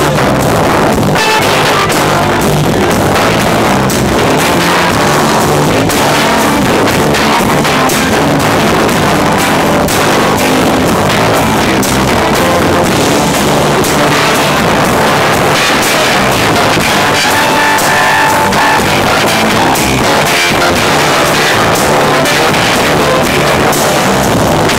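Live rock band playing an instrumental passage: electric guitar over a drum kit keeping a steady beat. It is loud and rough, heard right beside the main PA speaker.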